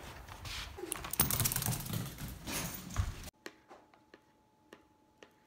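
Rustling and knocking as a hand-held camera is carried through a doorway. About three seconds in it cuts to a quiet room, where a knife slicing soft food clicks lightly against a plastic plate, about three times a second.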